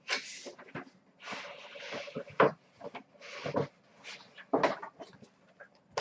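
A cardboard collectible box being opened and handled: irregular rustling and scraping of the packaging with a few sharp knocks, the loudest a little before halfway.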